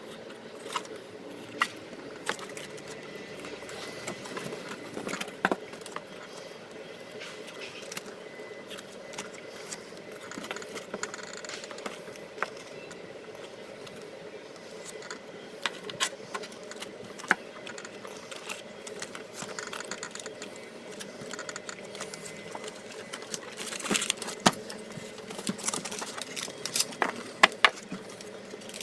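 Trading-card packs and cards being handled: scattered clicks and taps, with a burst of packet rustling about 24 seconds in and more rustling and snaps near the end. A steady mechanical hum runs underneath.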